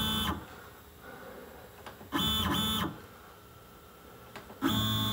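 Stepper motors of an MPCNC gantry whining as the machine is jogged in short moves, backing the tool off the stock. One move ends about a third of a second in, two brief moves follow back to back about two seconds in, and another starts near the end.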